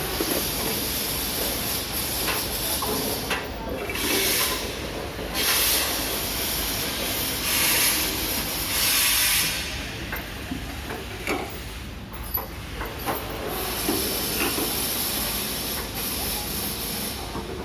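Assembly-line factory noise with four short bursts of hissing air, each about a second long, plus scattered metallic clicks and knocks.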